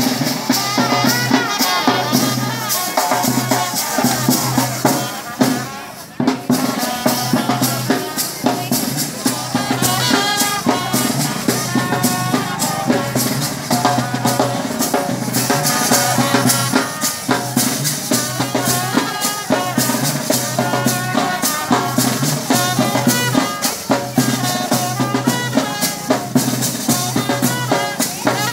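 Procession dance music: drums beating a fast, steady rhythm under a wavering melody and a repeating low bass pattern.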